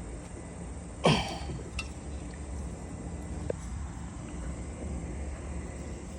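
A person's short cough-like vocal sound about a second in, over a steady low hum, with a couple of faint clicks after it.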